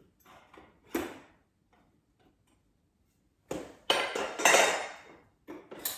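Metal tubes of a balloon hoop and backdrop stand clinking and rattling as a pole section is worked onto the base's spring snap-button fitting. There is a single click about a second in, then a louder run of clattering from about three and a half seconds.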